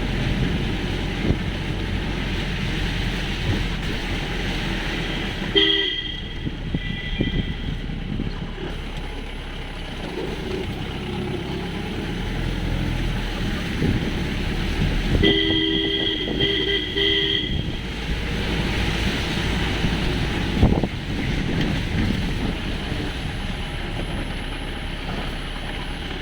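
Mahindra Thar jeep running and jolting down a rough, muddy track, its engine holding the speed back on the descent. A vehicle horn honks twice, each time for about two seconds, about six seconds in and again near the middle.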